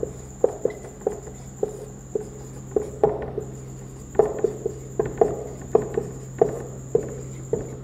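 A dry-erase marker squeaking and tapping on a whiteboard in short, quick strokes as handwriting is written, about two strokes a second.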